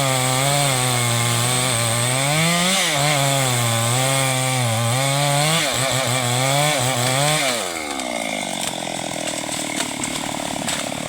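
Two-stroke chainsaw cutting into a mahogany trunk, its engine note wavering up and down as it bogs and recovers under the load of the cut. About seven and a half seconds in, the revs drop sharply and the saw settles to a quieter idle.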